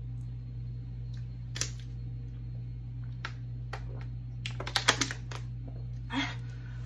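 Thin plastic water bottle crackling as it is drunk from and handled: a few scattered clicks, then a quick cluster of sharp crinkles a little past halfway. A steady low hum runs underneath.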